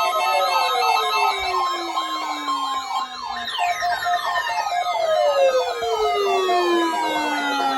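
Several NOAA weather radio receivers sounding their alert alarms at once, set off by the Required Weekly Test. The alarms overlap: steady beeping, a high warbling tone, and long falling electronic sweeps that repeat every few seconds.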